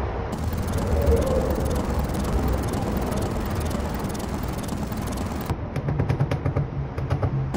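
Steady rumble of passing traffic. In the last two seconds, a rapid series of light, sharp taps from a small hammer striking a knockdown punch held against the door panel, knocking down the high spots around the dent.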